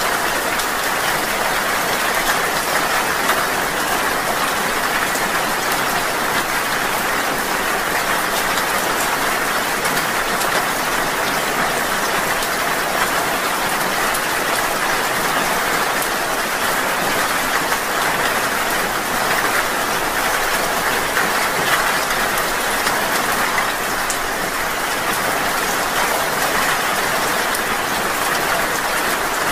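Steady rain falling: an even, unbroken hiss with fine drop ticks through it.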